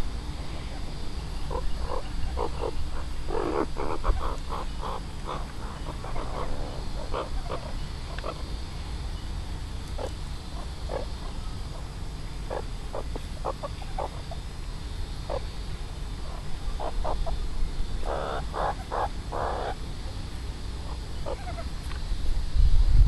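Meerkats' short calls repeated in irregular runs, with a quick group of four about eighteen seconds in, over a steady low rumble.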